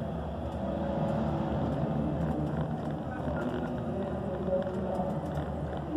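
Stadium crowd murmur: many fans' voices blending into a steady hum with a low rumble underneath, no single voice standing out.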